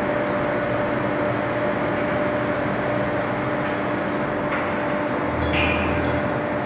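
Steady machinery noise of a steel pipe induction surface-quenching line: an even hiss with a steady hum, and a brief clatter of knocks about five and a half seconds in.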